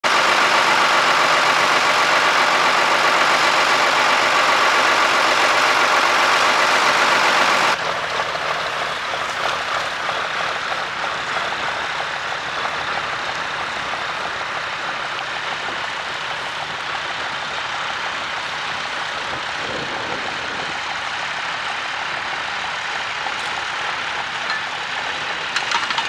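Ford 8210 tractor's six-cylinder diesel engine running steadily close by, loud and even. About eight seconds in the sound cuts abruptly to the same tractor pulling a reversible plough further off, its engine quieter under outdoor noise.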